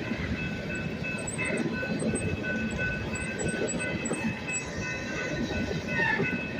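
Train rolling past a railroad crossing: a continuous rumble of rail cars going by, with faint steady high ringing tones above it.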